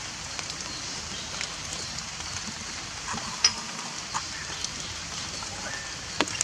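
Steady rain falling on leaves, an even hiss sprinkled with small sharp drip ticks; the loudest ticks come about three and a half seconds in and again near the end.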